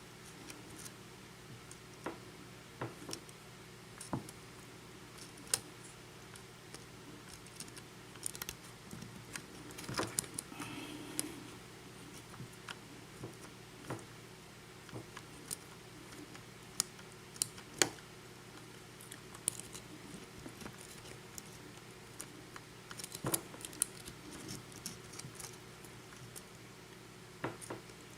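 Lock pick and tension wrench working inside a Schlage KIK pin-tumbler cylinder with security pins: faint, scattered metal clicks and scrapes with a few sharper ticks, as the pins are probed and set.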